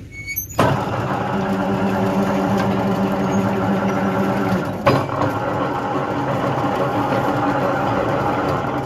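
Electric rebar bending machine's motor and gearbox starting abruptly and running with a steady hum as the turntable bends a steel bar. A sharp clunk about five seconds in, after which the pitch changes and the run continues.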